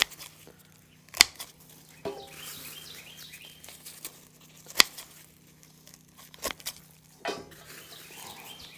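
Dry, papery garlic bulbs rustling and crinkling as they are handled and sorted by hand, with a few sharp knocks as bulbs are set down or dropped onto a pile. A faint steady hum runs underneath.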